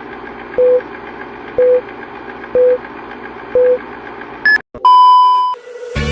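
Electronic countdown beeps over a steady hiss: four short low beeps one second apart, then a longer, louder, higher-pitched beep.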